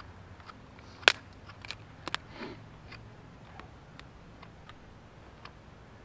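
Dry twigs and kindling being handled and snapped, with one sharp snap about a second in and a few lighter snaps and clicks after it.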